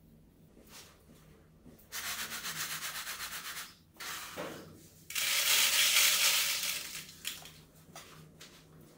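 Loose grain sliding in a metal tray and then poured into a plastic bottle: a rasping hiss from about two seconds in, then a louder rushing pour lasting about two seconds, trailing off into a few small clicks.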